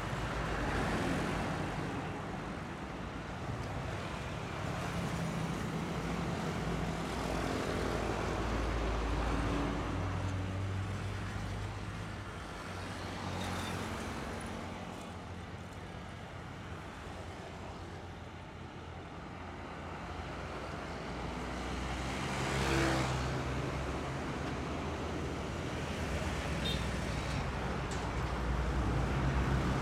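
Busy road traffic: motorcycles, trucks and buses passing, with engines running and tyres on the road. One vehicle passes louder and closer about three-quarters of the way through.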